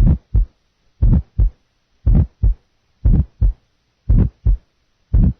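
Heart sounds heard through a stethoscope, about one beat a second, six paired lub-dub beats with a harsh, rough murmur of mainly medium frequency.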